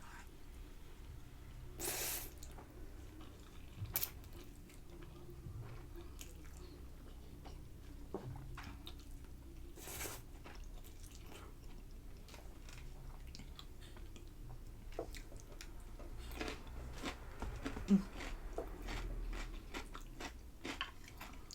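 Close-up chewing and biting of instant noodles with fried egg and cucumber, with many small wet and crunchy sounds. A couple of brief louder noises come about two and ten seconds in, and a sharp click comes about four seconds in.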